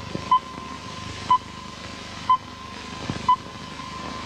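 Short electronic beeps at one steady pitch, repeating evenly about once a second, over a faint continuous tone and low background hiss.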